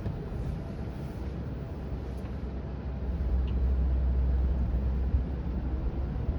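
Road and tyre noise inside the cabin of a moving electric self-driving car: a steady low rumble that grows louder about three seconds in, with one brief knock about five seconds in.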